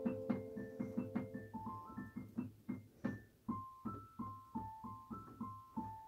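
Digital piano played slowly: a held chord dies away, then single notes follow at about three a second, a repeated low note under a short melody line higher up, growing softer toward the end as the piece closes.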